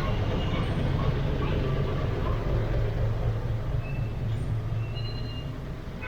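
A motor vehicle's engine running close by in street traffic: a low, steady drone that slowly fades near the end.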